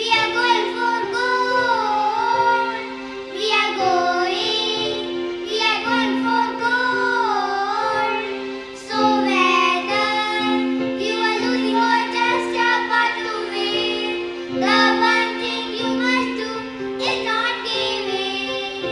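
Young girls singing a children's song into microphones over a recorded backing track of steady held chords.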